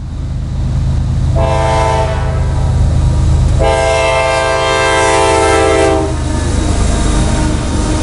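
CSX diesel freight locomotive approaching a grade crossing, sounding its multi-note air horn: a shorter blast about one and a half seconds in, then a long blast of about two and a half seconds. The horn warns of the train at the crossing. Under it runs the steady low rumble of the diesel engine.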